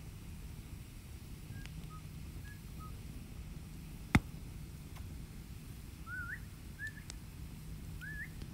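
Wet-wood campfire burning with a low rumble and scattered crackles, one sharp loud pop about four seconds in. Short high squeaky whistles come and go, more of them near the end: steam escaping from the wet logs.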